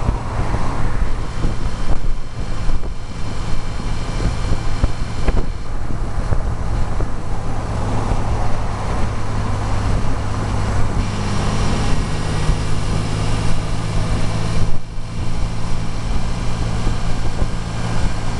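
Classic car's engine running steadily at highway cruise, heard from inside the car over a constant wind and road noise. A higher engine note joins about eleven seconds in.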